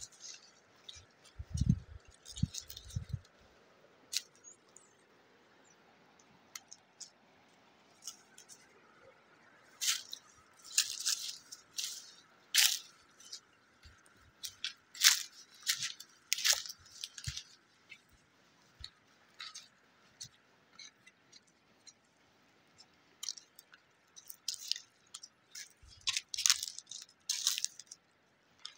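Footsteps crunching through dry fallen leaves and twigs in irregular bursts of crackling. A few low thumps come in the first seconds.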